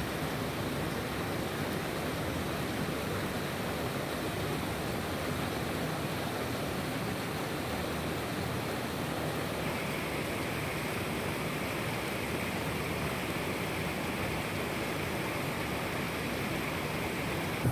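Water rushing steadily down a concrete spillway, with a higher hiss joining about halfway through.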